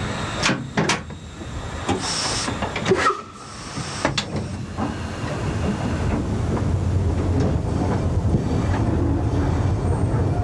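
Steam locomotive heard from inside its cab while running. Metallic knocks and clanks come over the first few seconds, with a short hiss of steam about two seconds in. About halfway through, a steady low running rumble takes over and grows.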